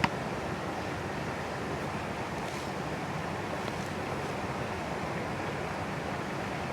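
A steady rushing noise with no pitch to it, and one sharp click right at the start.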